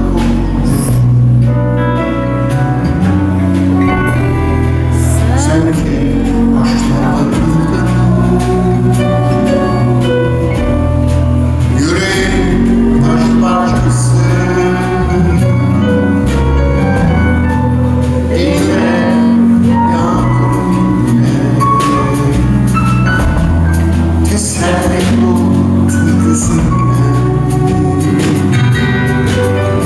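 Live band playing a slow song: acoustic guitar, electric guitar and keyboard, with a man singing.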